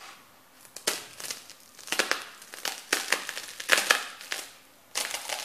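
Crunchy breadsticks snapping and crunching under a boot sole being pressed and trampled onto them, in several bursts of sharp crackles about a second apart. The loudest crunches come about two-thirds of the way through.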